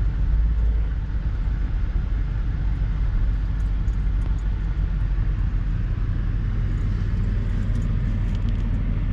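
Steady low road rumble inside a moving pickup truck's cab at highway speed: engine and tyre noise with the truck towing a toy hauler.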